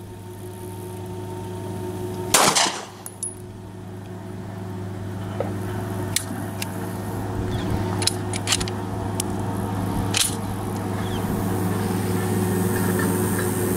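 Two 9mm pistol shots from a SCCY CPX-2, one about two seconds in and one about ten seconds in, with several fainter sharp cracks between them. A steady low hum grows slowly louder underneath.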